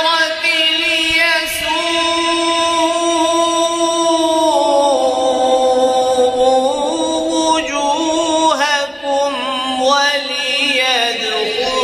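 A man reciting the Qur'an in Arabic in a melodic, drawn-out style, holding long notes with wavering ornaments. The line steps down in pitch about halfway through and breaks briefly for breath near the end.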